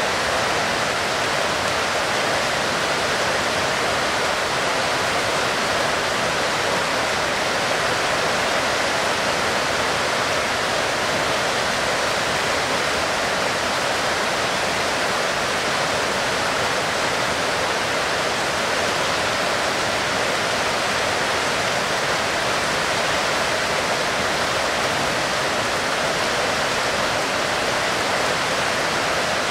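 Heavy rain falling steadily, a dense even hiss with no single drops standing out.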